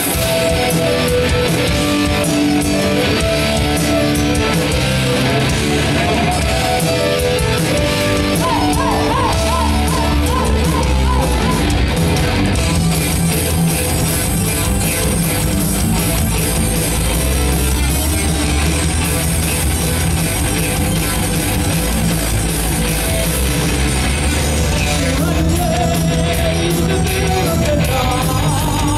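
Heavy metal band playing live: a melodic intro of sustained lines, then drums, bass and distorted electric guitars come in hard about halfway, with steady cymbals. A female singer comes in near the end.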